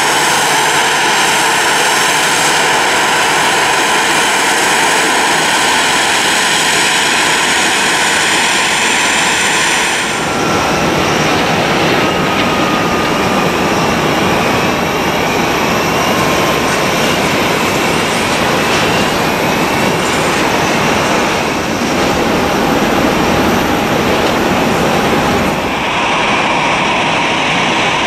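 Boeing 737-800's CFM56 jet engines running at idle, a loud steady rush with a high whine. About ten seconds in, the whine gives way to a tone that falls slowly.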